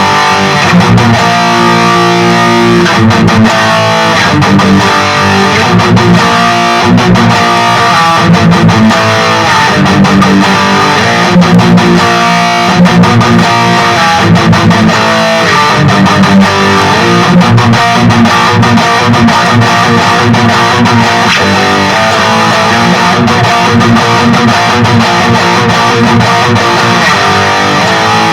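Electric guitar with active pickups played through a Peavey Vypyr 15 modelling amp on its XXX high-gain amp setting: continuous distorted riffing with a ballsy tone.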